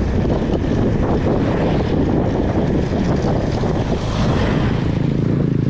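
Heavy wind buffeting the microphone of a cyclist riding along, a steady rushing noise; a low hum joins near the end.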